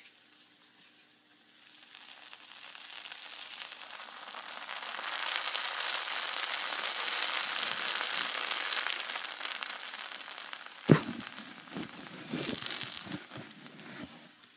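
Hot knife blade sizzling and crackling as it slices slowly through the top of a muffin, searing the crumb. The sizzle fades out and is followed by a sharp knock and a few lighter knocks and rustles as the cut top is handled.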